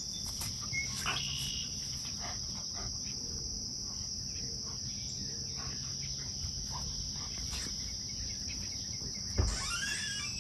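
A steady, high-pitched chorus of crickets runs throughout, with a few soft scuffles. Near the end comes a thump, followed by a few short, high squeals.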